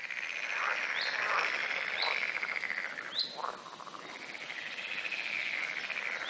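A chorus of frogs calling, a steady rapidly pulsing sound. A few short, sharp rising chirps come through it about once a second.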